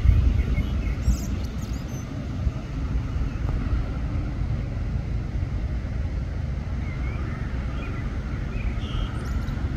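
Road traffic: a Scania Citywide LF city bus and a van driving past, giving a steady low engine and tyre rumble.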